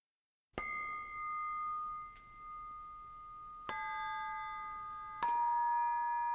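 Opening music of struck chime or bell tones: three strikes, each ringing on under the next, the second and third adding a lower note.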